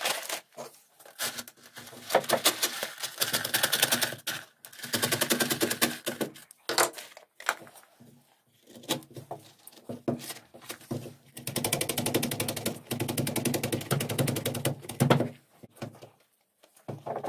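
Rapid tapping of a wooden mallet on a leather costrel, in several quick runs of one to four seconds with short pauses between.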